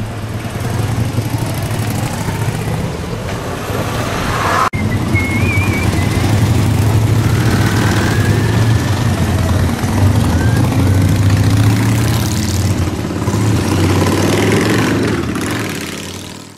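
Motorcycle engines running as bikes ride past on a street, with a short break in the sound about four and a half seconds in. The sound fades out near the end.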